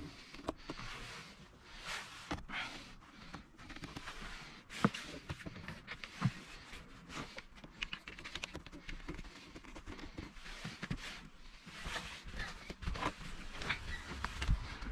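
Hands working a wire under car interior trim and carpet: rustling with scattered light clicks and taps, and two sharper knocks about five and six seconds in.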